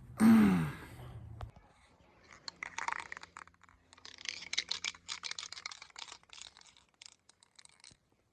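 A short falling vocal sound at the start, then about six seconds of dense crinkling and clicking handling noise.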